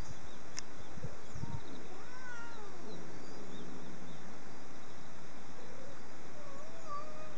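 Cats meowing: several drawn-out meows that rise and fall in pitch, about two seconds in and again near the end.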